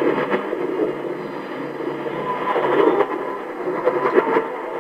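Shortwave radio reception noise on a 17930 kHz broadcast between items: a steady, loud rushing hiss with static crackles and a few faint tones showing through.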